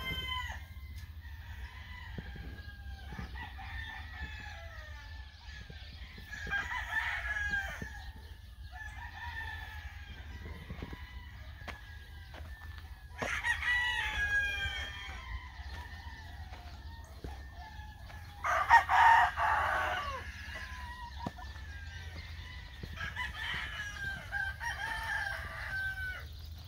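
Several gamefowl roosters crowing one after another from their pens, with the loudest crow about two-thirds of the way through.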